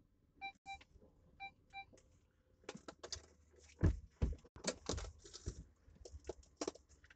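Two pairs of short electronic beeps, then clicking and rustling as things are handled in a car cabin, with a dull thump about four seconds in.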